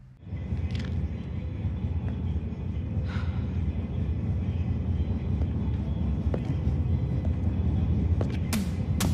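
Low, steady outdoor rumble like distant traffic, starting suddenly about a quarter second in. A quick run of sharp hits begins near the end.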